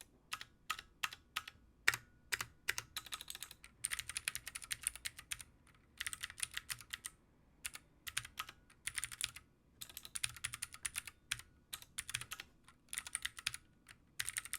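Typing on a Keychron Q1 aluminium-frame mechanical keyboard with Gateron Phantom Blue clicky switches, very clicky. A few single keystrokes come first, then runs of fast typing broken by short pauses.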